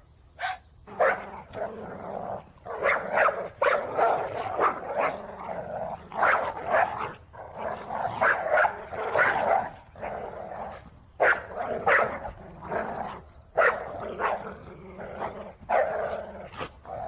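Dog barking again and again in sharp, loud barks, with rougher, drawn-out stretches between them.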